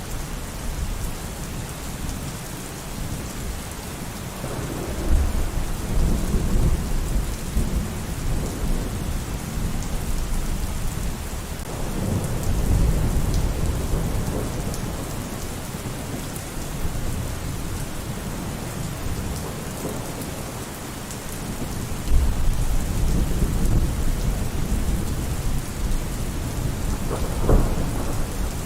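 Steady heavy rain with several rolls of thunder: deep rumbles swell and fade about a quarter of the way in, near the middle, and twice near the end.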